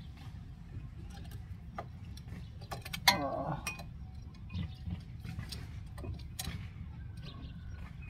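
Small metallic clicks and clinks as new ceramic front brake pads and their clips are fitted into a Nissan Sentra's caliper bracket, with one sharper, ringing clink about three seconds in. A steady low hum runs underneath.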